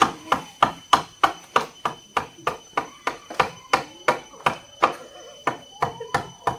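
Hammer blows on a wooden post, a steady run of sharp knocks at about three a second.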